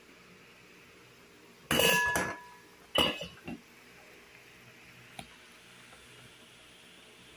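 A glass pot lid with a steel rim clinking against a stainless steel pot as it is lifted off: a ringing clatter about two seconds in, a sharp clink a second later with two smaller ones, then a light tap. A soft steady hiss from the boiling soup runs underneath.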